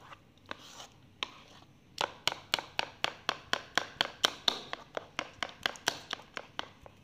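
A spoon beating jalebi batter by hand in a bowl: a few scattered taps, then from about two seconds in a quick, even run of sharp taps, about four a second, as the spoon strikes the bowl and slaps through the batter.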